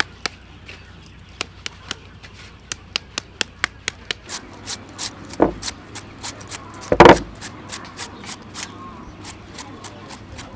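Unripe green mango being shredded with a serrated metal shredder-peeler: a run of quick scraping strokes, several a second, with a couple of heavier thumps, the loudest about seven seconds in.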